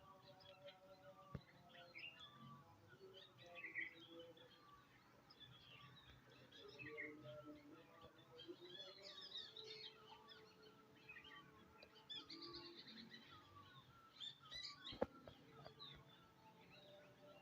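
Faint chorus of several birds chirping and calling, with many short, overlapping chirps and trills. A single sharp click about fifteen seconds in.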